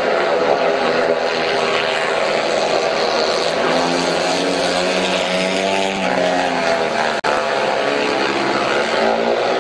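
Two speedway bikes' 500 cc single-cylinder methanol engines racing round the track, their pitch rising and falling as they pass. The sound breaks off for an instant about seven seconds in.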